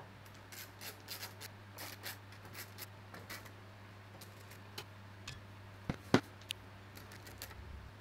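Hand screwdriver turning the small screws of a table saw throat plate: a run of short scratchy clicks, then two sharp clicks about six seconds in.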